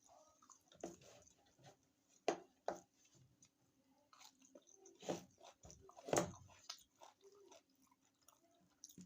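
Close-miked chewing of stuffed cabbage rolls and chicken, soft wet mouth noises broken by a few sharper, louder smacks of biting, about four of them spread through the middle.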